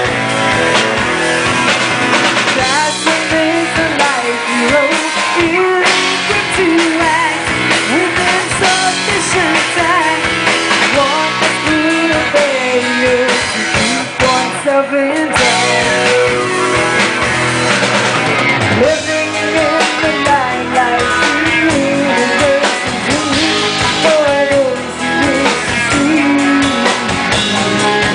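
Live rock band playing loud: electric guitar, bass guitar and drum kit, with a woman singing lead.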